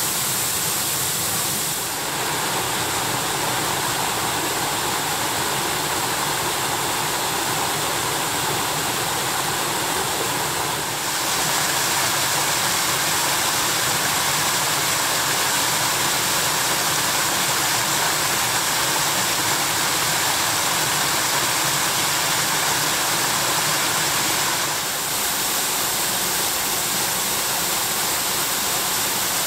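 Dolgoch Falls waterfalls: a steady rush of water falling over rocks, changing in tone three times as different cascades take over.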